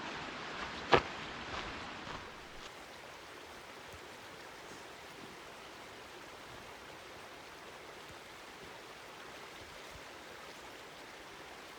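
Steady rushing of a forest creek, with a few knocks and rustles in the first two seconds, the loudest a sharp knock about a second in.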